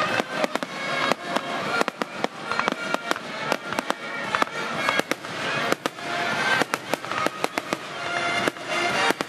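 Fireworks display: a rapid run of bangs and crackles, several every second, as shells and comets go off.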